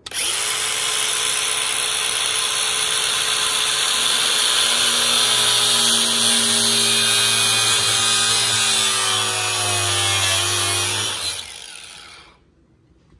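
Angle grinder switched on and cutting through a plastic car underskirt, a loud steady whine whose pitch sags slightly under load. It switches off about eleven seconds in and spins down.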